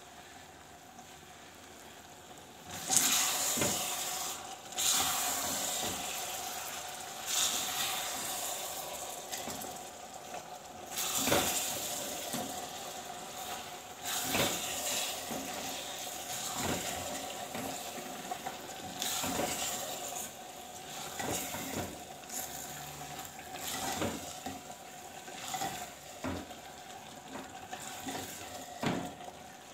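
A spatula stirring spinach and potatoes in a clay pot, scraping and knocking against the pot's sides in irregular strokes from about three seconds in, with the food sizzling as it cooks.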